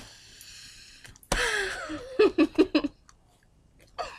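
A girl's sudden cry about a second in, sliding down in pitch, followed by a quick run of laughter.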